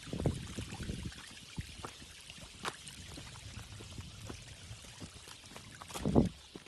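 A mass of small fish stranded in very shallow water, flapping and splashing: a continuous patter of small splashes and clicks. Two louder low thumps come near the start and about six seconds in. The fish are trapped by a sharp drop in the reservoir's water level.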